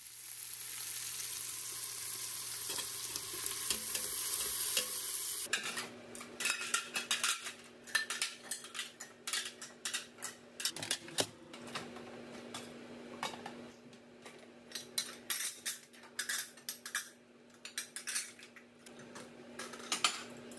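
Chopped onions sizzling in hot oil for a tadka, a steady hiss. About five seconds in it changes to a spoon stirring and scraping in the pan, with many quick clinks of metal over a low steady hum.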